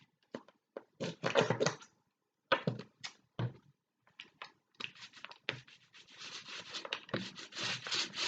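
Paint being brushed and rubbed onto a board: a few short scrubbing strokes, then from about five seconds in a run of quick, even back-and-forth strokes.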